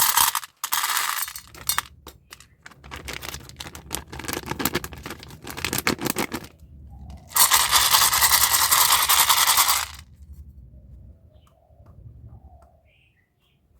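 Packaging being unwrapped by hand: crinkling plastic and paper with many small clicks and ticks, then a loud tearing or ripping noise lasting about two and a half seconds. It goes quiet for the last few seconds, with a few faint chirps.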